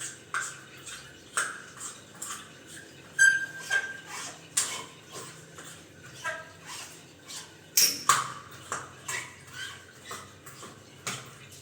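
Irregular clicks, taps and knocks of metal plumbing fittings being handled and seated, some giving a short ringing ping, the loudest about three seconds in and again about eight seconds in.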